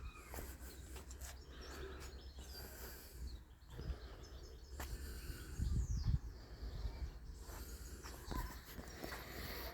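Quiet outdoor ambience with faint bird chirps now and then and a few low rumbles of wind or handling.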